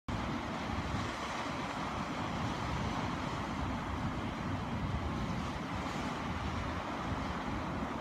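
Sea surf washing over black volcanic rocks on the shore, a steady rush of breaking waves, with wind on the microphone adding a flickering low rumble.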